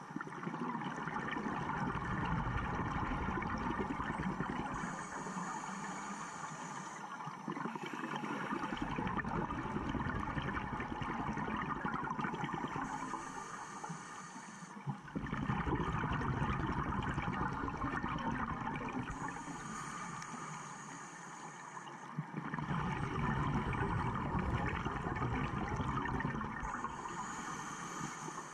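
Scuba diver breathing through a regulator underwater, heard through a camera housing: long rumbling spells of exhaled bubbles alternating with a high hiss of inhalation, about four breaths.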